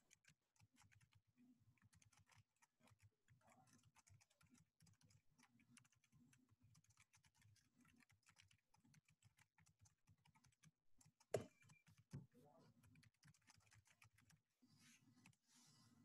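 Faint computer keyboard typing: many quick, irregular key taps, with a sharper knock about eleven seconds in and another just under a second later.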